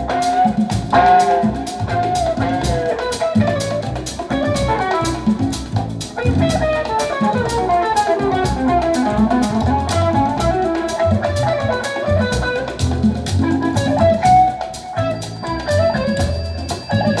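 Music played back through a pair of Wharfedale Denton 80 bookshelf hi-fi speakers: a melodic guitar line over a steady drum-kit beat.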